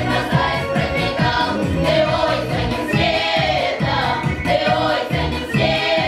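A Russian folk vocal ensemble of women and girls singing together in harmony, over an accompaniment with a steady beat of about two strokes a second.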